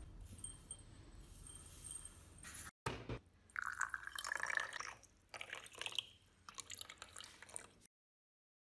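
Vinegar poured in a thin stream into a small glass beaker of citric acid crystals, starting about three seconds in. After it, a metal rod stirs the mix with light clinks against the glass.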